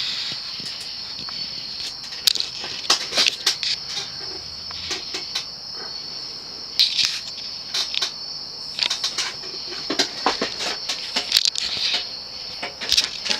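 Steady high-pitched cricket chirring with irregular sharp clicks and knocks over it.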